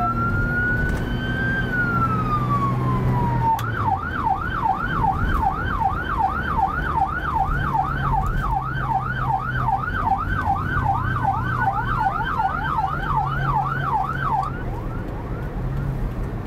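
Electronic emergency siren of a police escort. It sounds one slow wail, rising and then falling, then switches about three and a half seconds in to a fast yelp of about three sweeps a second, and cuts off near the end. Steady engine and tyre noise from the moving car runs underneath.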